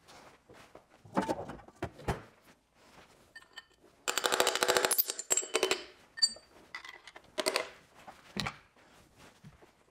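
Hand tools working on the underside of an Opel Z16XER engine block to push a piston out: a few separate metallic knocks, and about four seconds in a burst of rapid metallic clicking lasting nearly two seconds, the loudest part.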